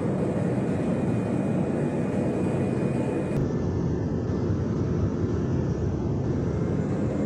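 Steady aircraft engine noise, a continuous low rumble with no rhythm. The tone shifts slightly about three and a half seconds in.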